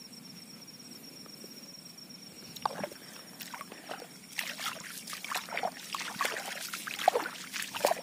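Swamp water sloshing and splashing in irregular strokes as someone wades through it, starting about three seconds in. Before that only a steady high whine is heard.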